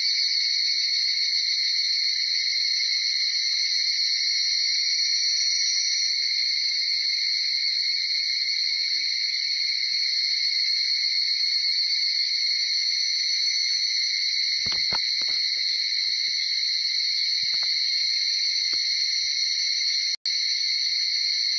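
A dawn chorus of many evening cicadas (higurashi, Tanna japonensis), their calls merging into a steady high ringing, with a brief break near the end.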